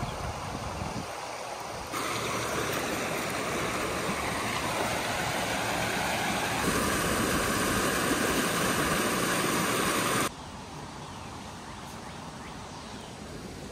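Muddy floodwater from a creek over its banks rushing fast across a pasture: a steady rushing noise that gets louder about two seconds in. It drops abruptly to a quieter outdoor background about ten seconds in.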